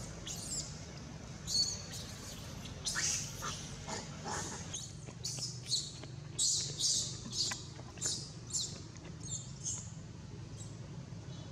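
Baby long-tailed macaque crying: a run of short, high-pitched squeals, thickest in the middle and thinning out near the end. It is crying to nurse from its mother.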